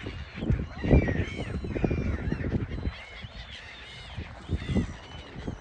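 A flock of gulls calling over the lake: many short, arched cries overlapping throughout. Wind buffets the microphone in gusts, loudest about a second in.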